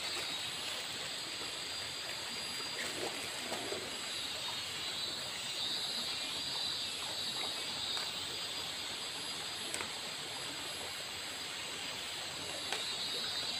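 Shallow river water running over rocks and snags, a steady rushing hiss, with a couple of faint clicks.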